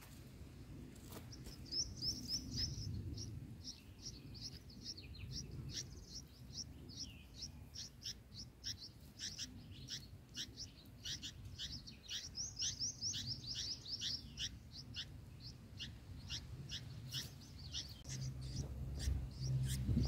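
Bulbul nestlings begging to be fed: rapid, high, thin chirps, several a second, rising and falling in bursts over a low rumble.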